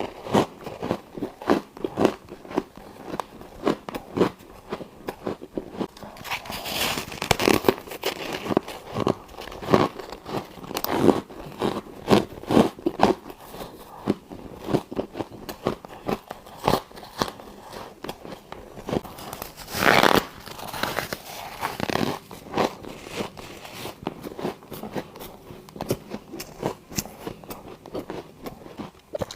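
Close-miked biting and chewing of frosty freezer ice chunks: a steady run of sharp crunches and squeaky cracks, with one louder, longer crunch about twenty seconds in.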